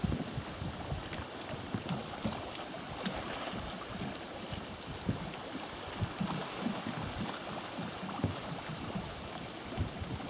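Wind buffeting the microphone in irregular low gusts, over a steady wash of water lapping around the pontoon and rocks.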